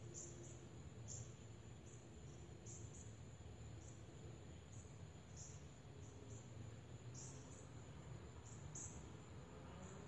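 Faint, very high-pitched short chirps, irregular at about one or two a second, over a steady thin high tone and a low background rumble.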